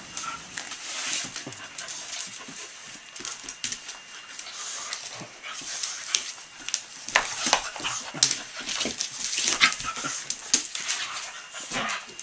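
A pit bull and a puppy play-fighting over a slipper. There is scuffling and many sharp clicks of claws on a hardwood floor, with a few short high whines.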